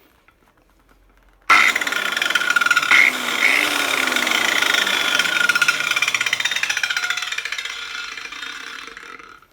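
APT 9-inch angle grinder switched on and running free without cutting, a steady high whine, then winding down near the end as it is switched off.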